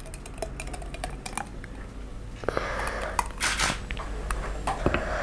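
Thick blended chocolate-coconut milkshake poured from a glass blender jar into a glass: light clicks at first, then a slushy splashing pour from about two and a half seconds in.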